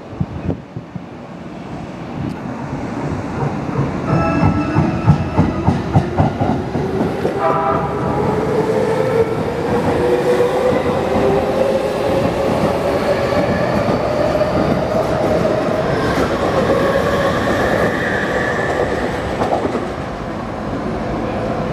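Electric commuter train pulling away past the tracks, its VVVF inverter traction drive giving a whine that rises steadily in pitch, with a few stepped tones early on. Under it is the clatter of wheels over rail joints.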